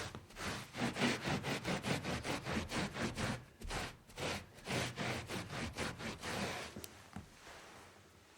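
Scrubbing a spill clean: quick back-and-forth rubbing strokes, about four to five a second, that slow and fade after about six seconds, with a single small click near the end.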